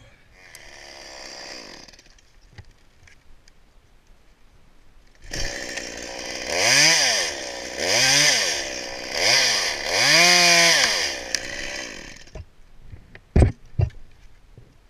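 Chainsaw engine revved four times in quick succession, its pitch climbing and dropping with each blip of the throttle, followed by a single sharp knock near the end.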